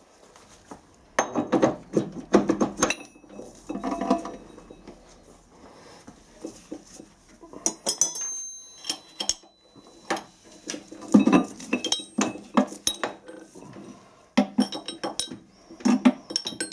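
Metal change gears of a Harrison lathe's end gear train clinking and knocking as they are taken off and fitted by hand, in irregular clusters of sharp metallic knocks, a few ringing briefly.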